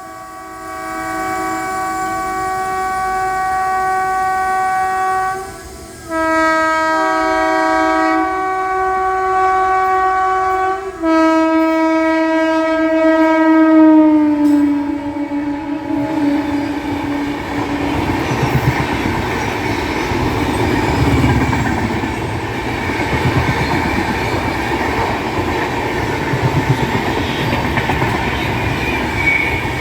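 Indian Railways locomotive's multi-tone air horn sounding three long blasts as the Duronto Express approaches at full speed, the last blast dropping in pitch as the locomotive passes. Then comes the rumble and wheel clatter of the coaches running through without stopping.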